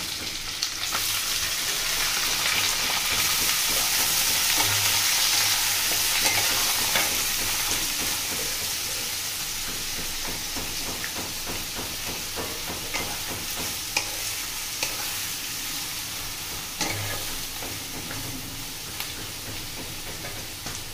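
Chopped onions sizzling in hot oil in a nonstick wok, stirred with a wooden spatula that knocks and scrapes against the pan. The sizzle is loudest a few seconds in and slowly dies down.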